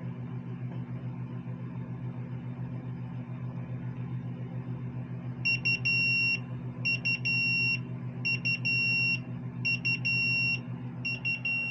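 A steady low hum, and from about halfway through an electronic alarm beeping: five high, nearly second-long beeps about one and a half seconds apart.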